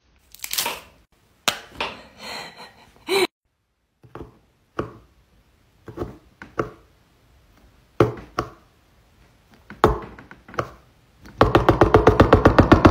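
Jumbo paint marker being primed: its tip is pressed down hard on paper again and again, giving about a dozen separate knocks and clicks a second or so apart. Near the end the pumping turns into a fast, even rapping, and music comes in with it.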